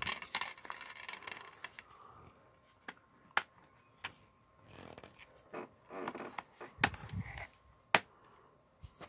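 A plastic DVD case and its paper insert being handled: rustling and scraping at first, then a few sharp clicks and knocks as the case is shut and set down. The sharpest click comes near the end.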